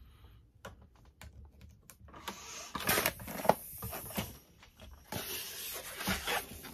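A white 260 latex modelling balloon being inflated with a pump: a few light handling clicks of the rubber, then from about two seconds in a rushing of air that swells and falls in strokes.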